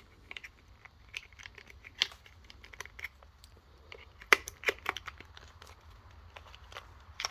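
Scattered clicks, taps and rustles of hands fitting a battery pack and its wires into the plastic battery compartment of a GellyBall G2 gel blaster, with a sharper knock a little past four seconds in.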